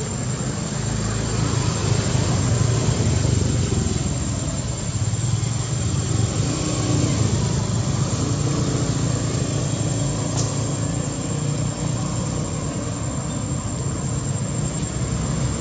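Steady outdoor background noise: a constant low rumble with a thin, steady high-pitched whine over it.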